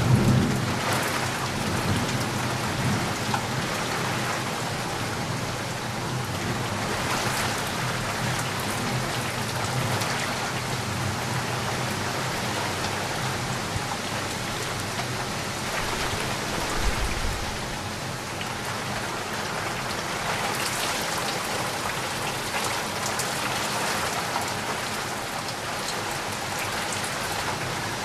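Heavy rain falling steadily, a dense even hiss of drops. A low rumble of thunder dies away in the first second or so.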